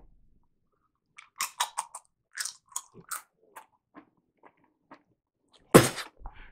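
A potato chip bitten and chewed: a quick run of crisp crunches, then softer chewing. About a second from the end comes one loud sneeze, the loudest sound here.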